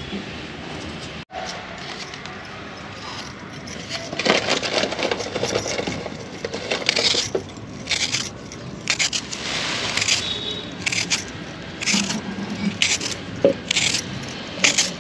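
Hand-held potato peeler scraping the skin off raw potatoes in short, repeated scratchy strokes.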